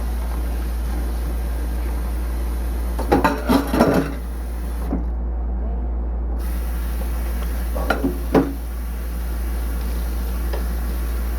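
Dishes and kitchenware clattering in two short bursts of knocks and clinks, about three seconds in and again about eight seconds in, over a steady low hum.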